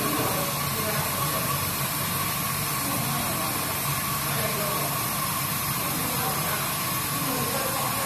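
Keg washing machine running with a steady hiss over a low mechanical hum.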